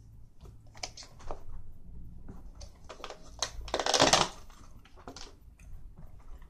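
Scattered small clicks and crackles of eating and handling food and things on a plate at a table, with one louder crackling rustle about four seconds in.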